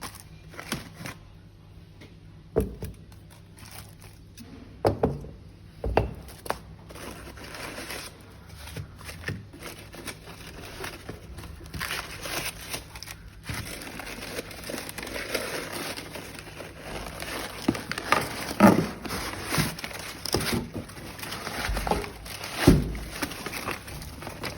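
Packaging crinkling and rustling as it is handled and opened, with a few sharp knocks scattered through; the rustling is thickest in the second half.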